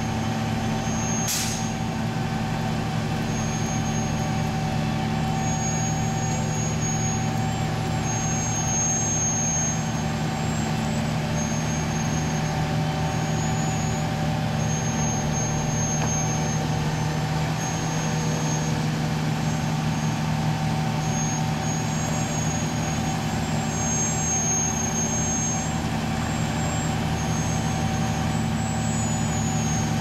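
Diesel engines of an asphalt paver and the dump truck tipping mix into it, running steadily under load. A steady whine sits over the engine note, short high squeals come and go, and there is one sharp click just over a second in.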